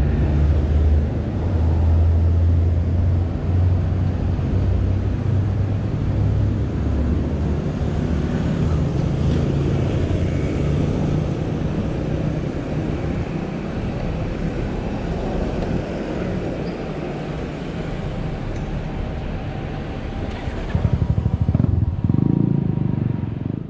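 Road traffic in a busy city street heard from a moving bicycle: motor vehicle engines and tyre noise. A deep engine rumble from a nearby vehicle is strongest in the first few seconds, and a louder engine with rising pitch passes near the end.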